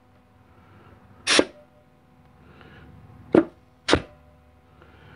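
Three short blasts of compressed air from an air nozzle into the low/reverse clutch apply passage of a 700R4 transmission case, the first about a second in and two quicker ones close together near the middle. The clutch piston is being air-checked, and the firm, solid sound is the sign of a good clutch whose piston seals hold and apply.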